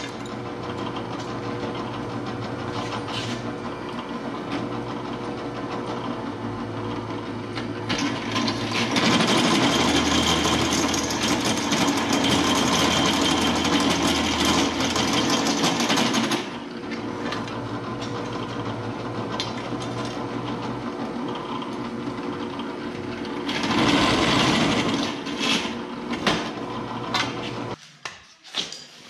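Drill press motor running steadily, with a step drill bit cutting into a flat steel bar for about seven seconds from around nine seconds in, and again briefly near the end.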